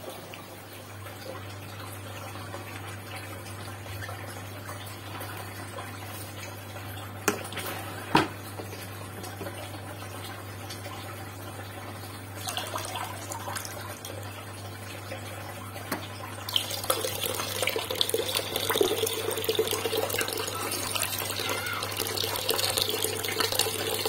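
Aquarium water trickling and splashing over a steady low hum, the water sound getting louder and fuller about two-thirds of the way through. Two short knocks come about a third of the way in.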